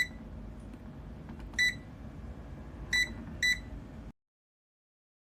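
Four short electronic beeps from a Lifepro HomePro dehumidifier's control panel as its buttons are pressed, over a steady low hum. The sound cuts off abruptly about four seconds in.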